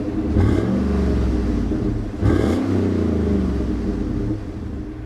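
2012 GMC Yukon Denali's 6.2-litre V8 revved in two quick blips, one under a second in and another about two seconds in, each falling back to idle. It settles to a quieter idle near the end.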